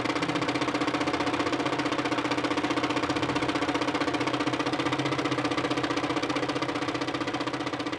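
Philips DP70 70mm film projector running 70mm film at 30 frames per second: a steady, rapid mechanical clatter from the intermittent mechanism over a constant motor hum.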